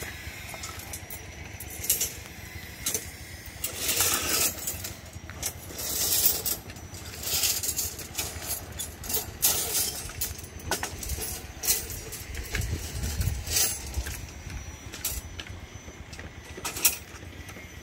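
Steel reinforcing bars clinking and rattling as they are handled, in irregular sharp metallic clinks, over a low steady rumble.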